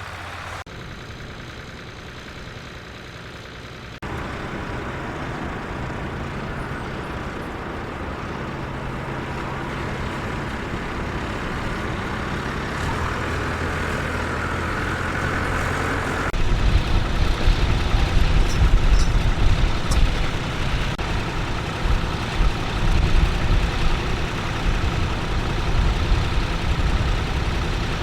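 Tractor engine running under load while pulling a plough, growing steadily louder as it comes closer. From just past halfway, a heavy, uneven low rumble sets in and stays loud.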